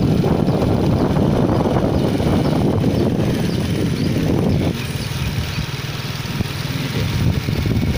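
Honda motor scooter running while riding along a street, a dense steady rumble of engine and riding noise. It drops noticeably a little past halfway through.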